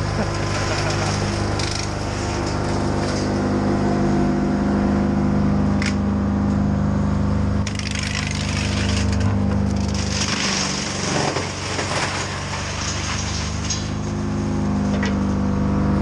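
An engine running steadily, with bursts of crackling and snapping noise about eight seconds in and again from about ten to twelve seconds in.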